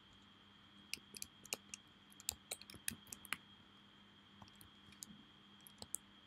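Computer keyboard typing: quick, irregular keystroke clicks, a dense run in the first half and a few scattered clicks near the end, over a faint steady high tone.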